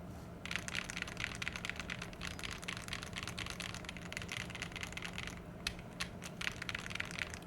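Fast typing on an Akko ACR Pro Alice Plus mechanical keyboard with lubed Akko CS POM Pink switches: a quick stream of keystroke clicks that starts about half a second in. Near the end it breaks off briefly for a few lone keystrokes, then picks up again.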